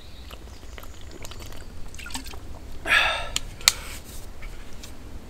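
A man drinking from a bottle: liquid and swallowing sounds, with a louder burst of noise about three seconds in and a sharp click just after. Pine cones burning in a small wood-gas stove give sparse crackles throughout.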